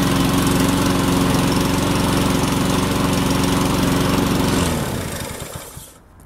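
Cobra petrol lawn mower engine running steadily, then cutting out about four and a half seconds in and spinning down to a stop within about a second.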